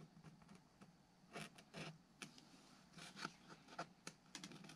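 Faint, scattered clicks and scratches of a fingernail working on a foam model-plane wing, picking out the cut-outs for the pylons.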